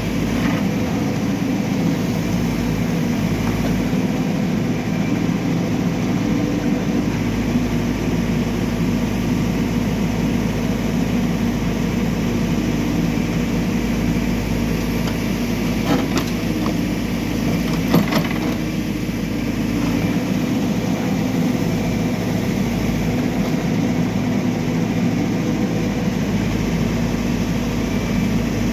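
Backhoe loader's diesel engine running steadily, with two sharp knocks about two seconds apart past the middle.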